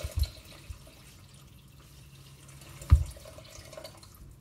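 Water trickling faintly into a Bimby (Thermomix) mixing bowl as it is measured out by weight, with a short knock just after the start and a louder thump about three seconds in.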